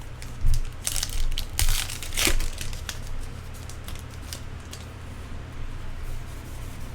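A foil trading-card pack wrapper being torn open and crinkled: three loud tearing, crinkling bursts in the first two and a half seconds, then quieter rustling as the cards are handled.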